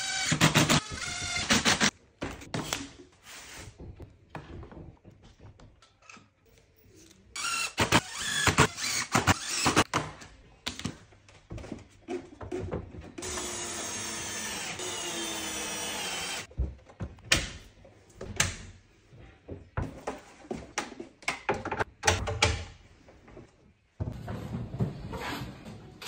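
Cordless drill-driver driving screws in several short runs, the longest a steady run of about three seconds around the middle, with sharp knocks and clatter from handling cabinet parts in between.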